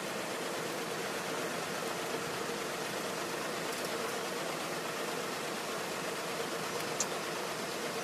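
Steady, even hiss of background noise with a faint steady hum, broken only by a single short tick about seven seconds in.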